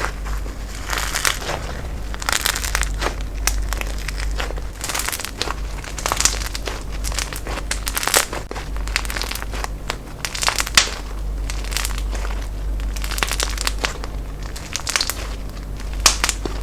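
Slime being squeezed and poked by hand, giving dense, irregular crackling and crinkling, over a low steady hum.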